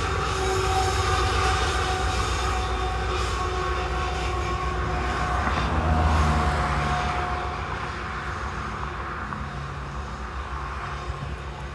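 Freight train rolling across an elevated rail bridge: tank cars rumbling past with a steady high tone over them. A Canadian Pacific diesel locomotive's engine swells to the loudest point about six seconds in, then fades as the train moves away.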